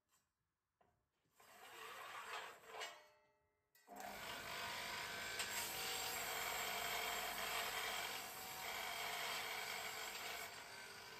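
Electric motor of a homemade pipe rust-removal machine spinning an abrasive wheel against a square steel tube fed along its rollers: a steady rubbing, grinding sound that starts abruptly about four seconds in. Before that, near silence with a short swell of sound that rises and fades.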